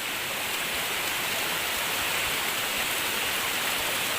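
Steady rushing of water, the continuous rumble of a waterfall and stream heard along the trail.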